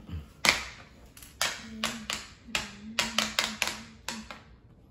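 Wooden chess pieces clacking: about a dozen sharp, irregular taps and knocks as pieces are picked up and set down, the loudest about half a second in and a quick run of them near the middle.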